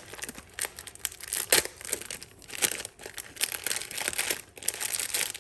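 Small plastic packet crinkling and rustling in the hands while a Cat6 connector's inner sleeve is taken out of it: an irregular run of crackles.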